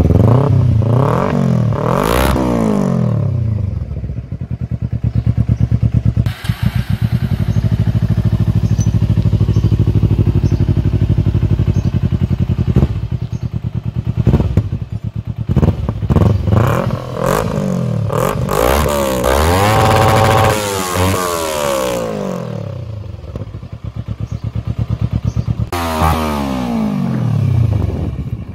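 Kawasaki Ninja 250's parallel-twin engine through a Yoshimura aftermarket exhaust, revved repeatedly with the bike standing still. The pitch rises and falls sharply with each throttle blip, and the engine settles to a steady idle between bursts of revving.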